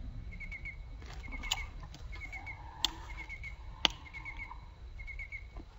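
Crickets chirping in a steady rhythm, a short trill about once a second, over a low steady rumble. Two sharp clicks sound near the middle, a second apart.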